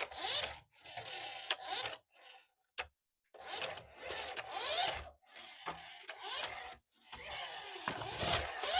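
Small toy RC car's electric motor and plastic gears whirring in short bursts, with clicks and brief rising whines, broken by sudden silences.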